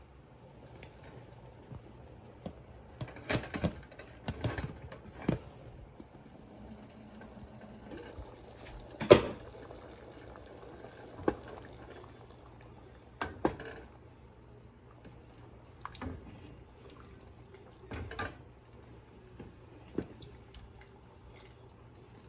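Scattered clinks and knocks of a utensil against a cooking pot, about a dozen in all, the loudest a sharp knock about nine seconds in, with liquid sounds from the curry.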